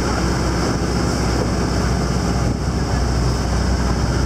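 Tractor engine running steadily as it tows the tractor bus's passenger trailer uphill, heard from the trailer as a continuous low drone.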